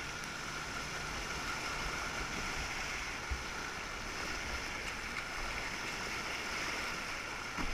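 Fast tidal water rushing and breaking as whitewater around a marker post and against a sea kayak's bow, a steady hiss. Two brief low thumps, one about three seconds in and one near the end.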